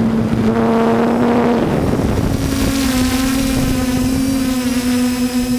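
Multirotor drone's electric motors and propellers buzzing steadily, picked up by the onboard camera. A rush of wind noise covers the first couple of seconds, and the buzz steps up slightly in pitch about halfway through.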